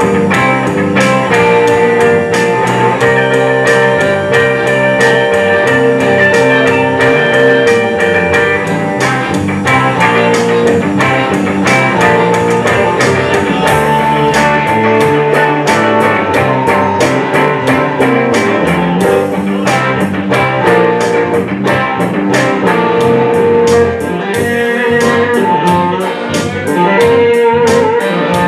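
Live band of electric guitars and electric bass playing a blues-rock jam to a steady beat, with held, sustained lead-guitar notes over the rhythm.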